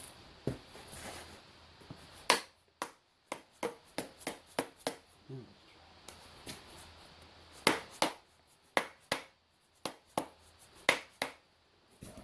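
Irregular sharp taps and clicks, more than a dozen with short pauses between them: a soft-faced hammer tapping the rear main seal wear ring onto the crankshaft flange of a 7.3 Powerstroke diesel.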